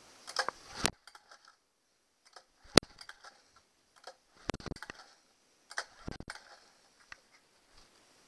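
Clicks and short rattling bursts from a 1999 Honda 8 hp two-cylinder four-stroke outboard turned over by hand on its recoil starter, plugs out, for a compression test. Several brief pulls, with one sharp click about three seconds in.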